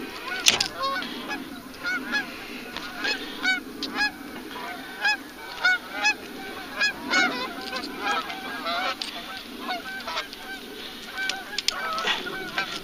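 A flock of geese honking: many short calls overlapping and repeating throughout, with a sharp knock about half a second in.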